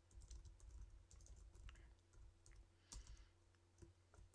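Faint typing on a computer keyboard: a scatter of quiet, uneven keystrokes over a low steady hum.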